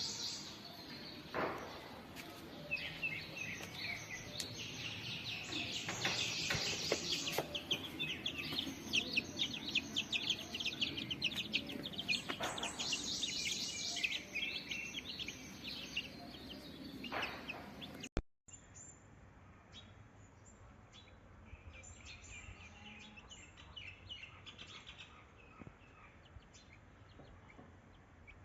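Many small birds, likely chicks, chirping rapidly and continuously in high peeps, with a few short knocks. The chirping drops abruptly to a quieter level about two-thirds of the way through.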